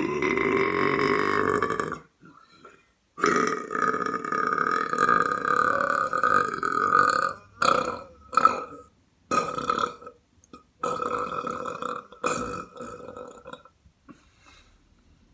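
A person belching: a long belch carries on from before and stops about two seconds in. About a second later comes a longer one of some four seconds, followed by a run of short belches that grow weaker toward the end.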